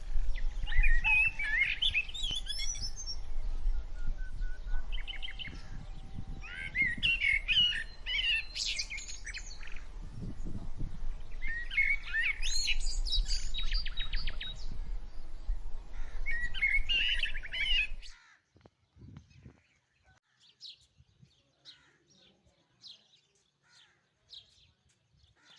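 Small birds chirping and trilling in repeated quick phrases over a low steady rumble; about three quarters of the way through both cut off suddenly, leaving only faint scattered chirps.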